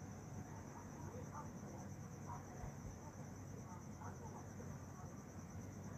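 Faint, steady cricket trill: a high, evenly pulsing note, over a low background hum.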